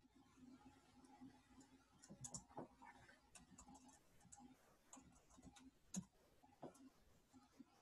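Faint, irregular clicks of computer keyboard keys as text is deleted and edited, over a low steady hum.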